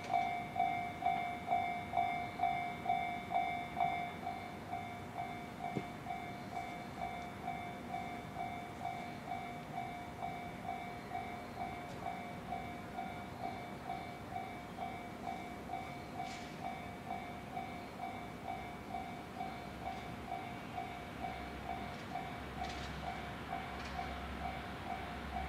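Japanese railway level-crossing alarm ringing its repeated electronic clang, about two and a half strikes a second, louder for the first four seconds. Near the end a low rumble of an approaching train starts to build.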